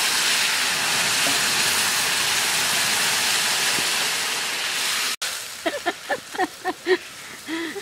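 Liquid curry of bitter gourd and puti fish poured into hot oil tempered with cumin seeds in a kadai, sizzling in a loud, steady hiss with heavy steam. The hiss cuts off abruptly about five seconds in.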